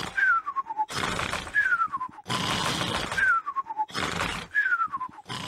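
Cartoon pigs snoring in their sleep: a rough snort on each breath in, then a thin whistle falling in pitch on each breath out. The cycle repeats about four times, roughly every second and a half.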